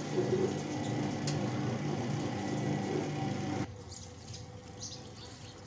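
Top-loading washing machine running a wash: a steady motor hum with the churning of soapy water and clothes in the tub. It cuts off suddenly about three and a half seconds in, leaving a much quieter background.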